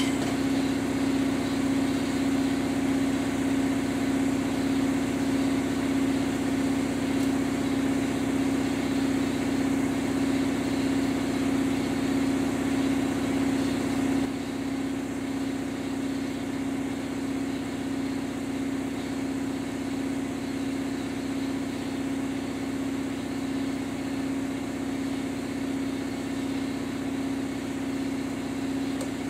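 Electric motor of a radial arm drill press running with a steady hum, dropping a little in level about halfway through.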